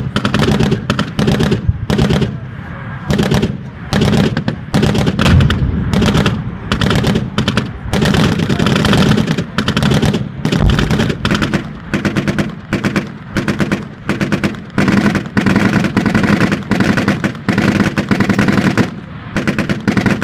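Tank machine guns firing in long, rapid strings of shots, with brief pauses between bursts.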